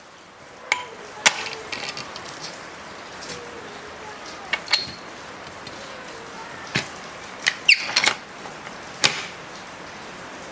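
Cast-iron hand-crank wine corker being worked: a string of sharp metallic clanks and clicks at irregular intervals, with a quick cluster about eight seconds in, over a steady hiss.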